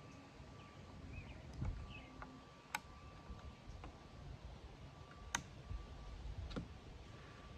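A few sharp metallic clicks and light handling knocks from the parts of a Schmidt-Rubin 96/11 rifle being handled and fitted back together, the loudest clicks about a third and two thirds of the way through.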